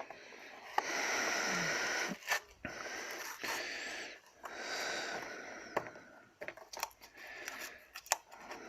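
A sticker label being scratched and picked at with a fingernail on a new stabilizer link. It comes in several scraping stretches of a second or two, with sharp clicks between them.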